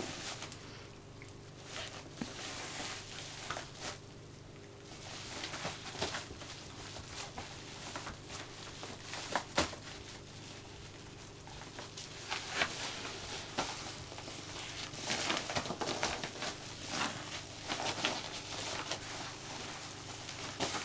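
A dog nosing, pulling and tearing at a plastic parcel bag, making irregular crinkling and rustling with scattered sharp clicks, busier in the second half.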